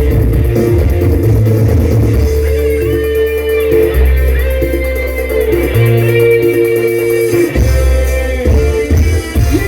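Instrumental passage of live gambus music played loud through a PA sound system: a plucked-string melody over held bass notes that change every second or two, with no singing.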